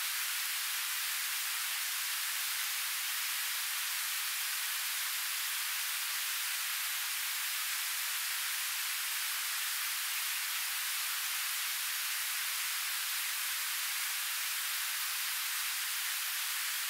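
Steady, even rush of flowing river water, an unbroken hiss with no distinct events.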